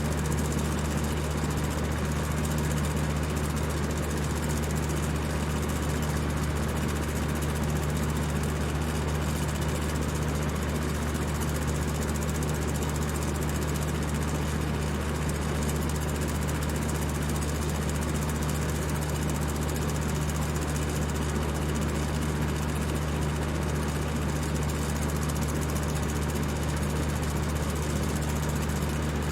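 Electric fan running at high speed: a steady whir of rushing air over a low motor hum.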